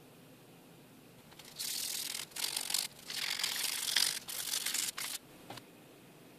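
A small hand-held pad scrubbed in about five short strokes over a blackened steel axe head, a dry hissing scrape with brief pauses between strokes, rubbing back the blackening to bring out the etched design.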